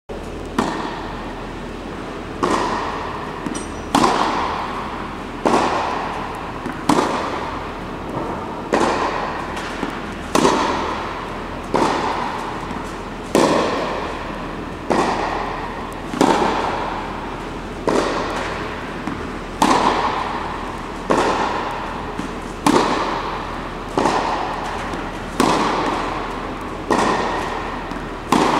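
Tennis balls struck by rackets in a steady groundstroke rally: a sharp pop about every second and a half, each ringing on in echo.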